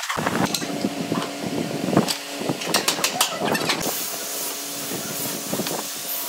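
Loose wooden slats knocking and clattering as they are laid onto a wooden table frame, over a steady hum. A steady hiss comes in about four seconds in.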